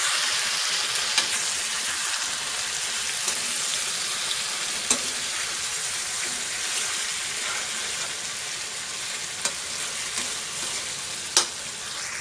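Chicken and onions sizzling steadily in hot oil in a pan while being stirred, with a few sharp clicks of the spoon against the pan.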